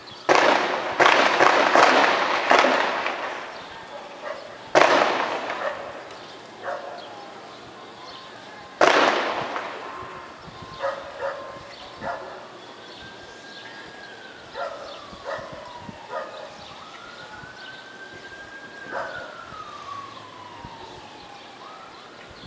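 Gunfire echoing across a neighbourhood: a burst of several shots in the first few seconds, then single loud shots about five and nine seconds in, each with a long echoing tail. Fainter sharp reports follow, while a distant siren wails, rising and falling, through the second half.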